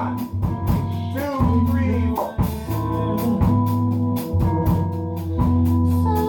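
A live band playing a bossa nova arrangement: held chords over steady bass notes, with regular cymbal and drum strokes. A woman sings into a microphone over it.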